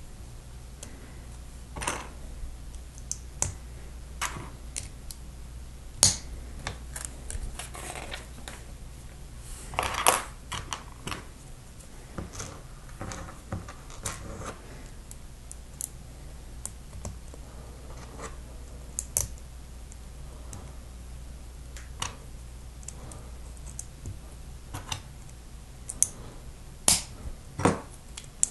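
Plastic Lego plates and bricks clicking as they are handled and pressed together, irregular sharp clicks with a few louder snaps, over a low steady hum.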